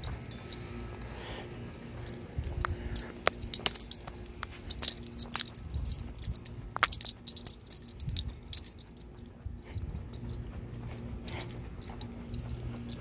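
Small metal pieces jingling and clinking in irregular clusters of sharp clicks as a leashed dog is walked, thickest in the middle of the stretch, over a steady low hum.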